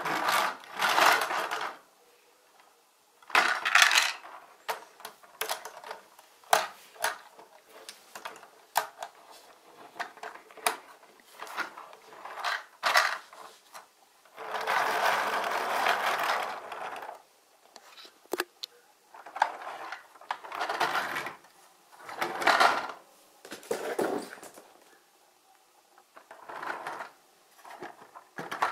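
Plastic wheels of a brick-built toy truck and trailer rolling over a wooden tabletop in several short pushes, the longest near the middle, with clicks and taps of plastic pieces being handled in between.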